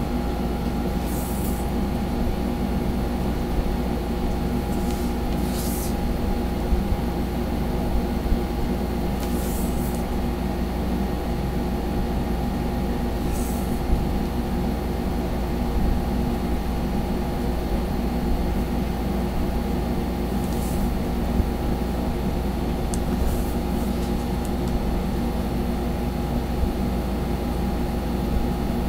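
A steady low machine hum with several steady tones in it, from an unseen source. Now and then, brief faint scratches of a felt-tip marker drawing curved strokes on paper.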